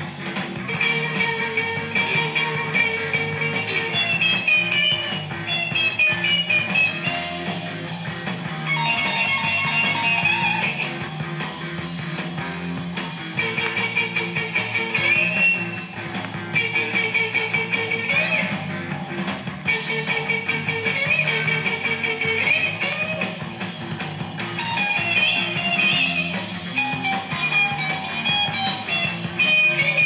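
Rock music with a prominent guitar, played from a 7-inch vinyl single on a turntable; quick guitar note runs repeat throughout.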